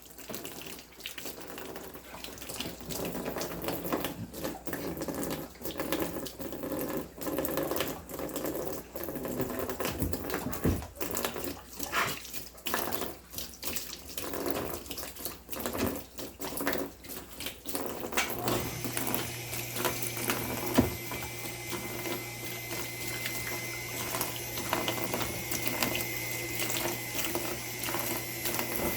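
Well water running and splashing from a tap, broken up irregularly as a German shepherd drinks and plays in the stream. About two-thirds of the way in, a steady hum with a faint high whine starts up and continues.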